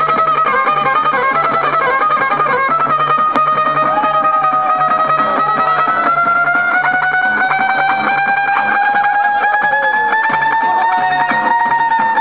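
Music led by a plucked string instrument: long held melody notes that slowly climb in pitch over a steady, evenly pulsing low beat.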